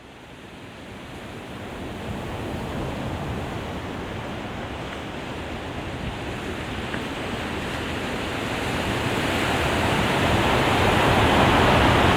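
Ocean surf rushing on a beach, a steady wash of noise that fades in from silence and swells slowly, loudest near the end.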